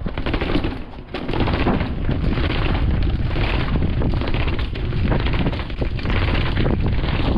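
Wind buffeting the microphone: a loud, rumbling noise that sets in about a second in and holds steady, with scattered knocks and rattles through it.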